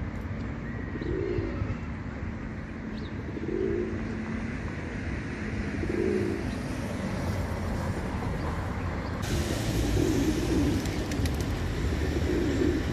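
Male feral pigeon (rock dove) cooing: low, rounded coos repeated about every two to three seconds, over a steady low background rumble.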